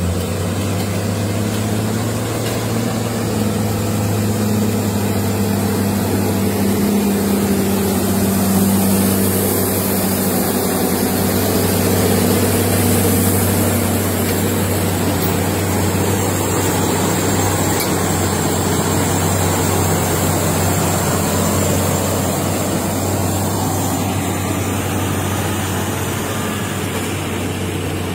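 Heavy diesel engines of a motor grader and trucks running steadily: a low, even drone that swells a little about eight to twelve seconds in.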